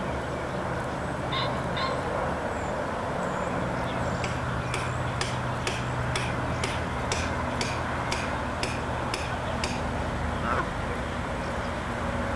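Outdoor lakeside ambience: a steady hiss with a low hum underneath, a few short bird calls, and a run of evenly spaced sharp ticks, about three a second for about five seconds midway.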